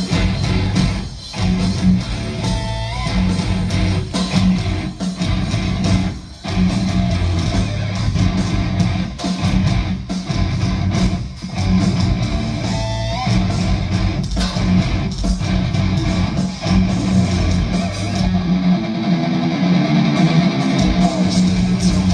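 Heavy metal band playing live: a loud, distorted electric guitar and bass riff with drums, broken by short stops every few seconds.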